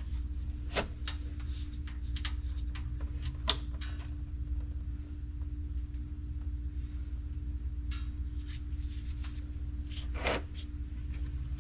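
Scattered metal clicks and knocks of a wrench and socket working a differential drain plug loose, over a steady low hum.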